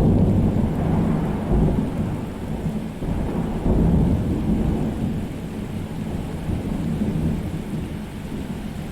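Thunderstorm: thunder rumbling low and long over steady heavy rain, the rumble swelling near the start and again about four seconds in, then easing off.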